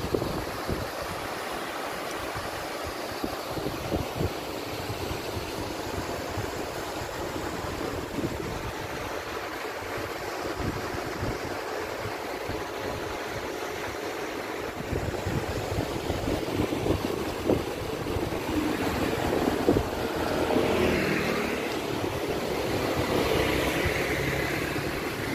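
Wind buffeting the microphone over steady road traffic noise. A motor vehicle passes close by from about three quarters of the way through, louder than the rest.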